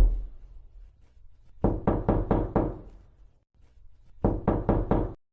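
Knocking on a door in quick groups of raps: the last of one group right at the start, then five quick knocks about a second and a half in, and another five near the end.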